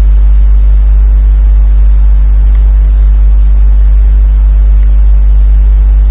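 Steady low hum with a ladder of overtones, loud and unchanging throughout.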